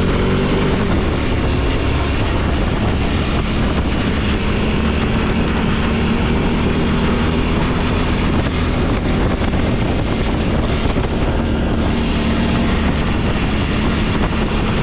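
Four-wheeler (ATV) engine running steadily under way on a trail, with a constant engine drone and road noise.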